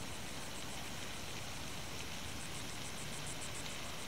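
Steady outdoor hiss, with a fast high-pitched pulsing chirp, about seven pulses a second, that grows stronger in the second half.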